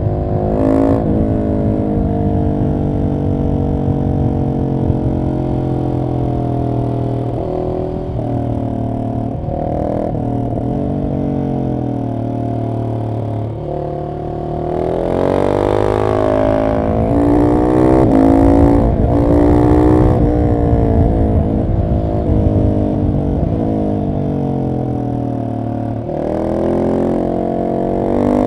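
Husqvarna 701 SM single-cylinder engine through a decatted Arrow exhaust, under way on the road, revs rising and falling with throttle and gear changes. It pulls harder, louder and higher, about halfway through, then eases and climbs again near the end.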